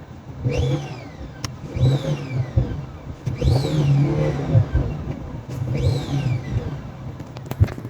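Car engine revved in about four blips, each bringing a high whistle that rises sharply and then slides down as the revs drop. This is the squeaking-noise complaint, traced to the turbocharger's compressor inlet hose having come off.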